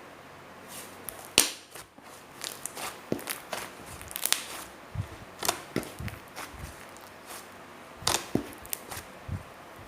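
Soft clay slime being squeezed and stretched by hand, giving irregular sharp pops and squishy clicks, one loud pop about one and a half seconds in.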